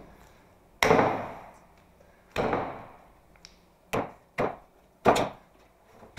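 Lumps of soft modelling clay slapped and knocked down onto a block of clay, packing it together: five dull thuds at uneven intervals, the first and last the loudest.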